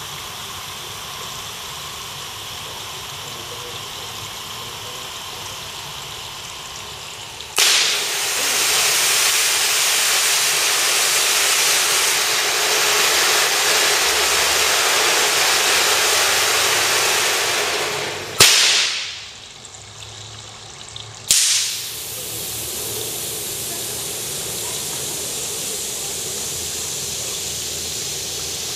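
Stage pyrotechnics hissing as they burn: a steady hiss, then about seven seconds in a sudden, much louder hiss as silver spark fountains (gerbs) fire for about ten seconds. As they die away two sudden loud bursts come about three seconds apart, followed by the steadier hiss of red flares burning.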